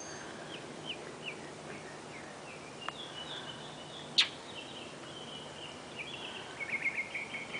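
Birds chirping outdoors: short scattered chirps, then a quick run of chirps near the end. A single sharp click about four seconds in stands out above them.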